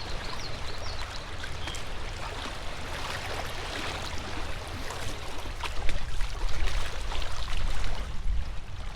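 Fast river water rushing and splashing around a canoe running a rippled stretch of current, getting louder and choppier for a couple of seconds after the middle.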